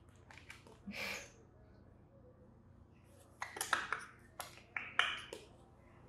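An African grey parrot's beak clicking, scraping and nibbling at plastic over-ear headphones, with rustling as it tugs at them. A short rustle about a second in, then a busy run of sharp clicks and scrapes in the second half.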